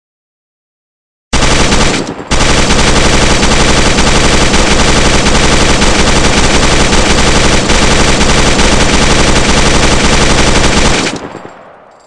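PKM belt-fed machine gun in 7.62×54mmR firing on full auto: a short burst about a second in, then after a brief break one long sustained burst of about nine seconds that dies away near the end.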